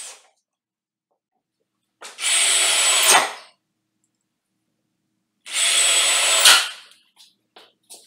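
Ryobi cordless drill driving screws into a door hinge in two runs of about a second and a half each, with a steady high motor whine, each run ending with a sharp click.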